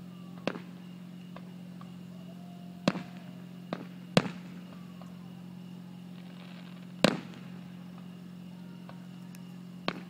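Fireworks going off: about six sharp bangs at irregular intervals, the loudest two about four and seven seconds in.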